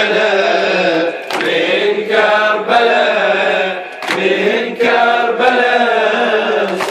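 A man chanting an Arabic Muharram elegy (latmiya) into a microphone, in long held melodic phrases with short breaks for breath between them.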